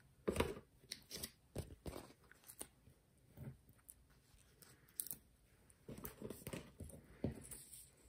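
Foam adhesive dimensionals being peeled off their sheet and pressed onto a paper die-cut: scattered small crackles, rustles and taps, a few louder ones near the start and in the second half.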